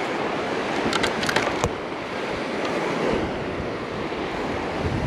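Surf washing onto the beach with wind buffeting the microphone, a steady rushing noise. A few short, sharp clicks come about a second in.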